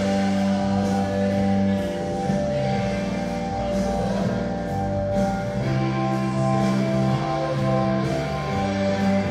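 Background music: sustained chords that change every second or two, with guitar.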